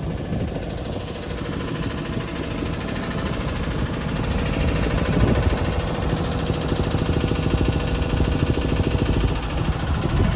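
Boat engine running steadily under way, a continuous hum with an even fine pulse that swells slightly about halfway through.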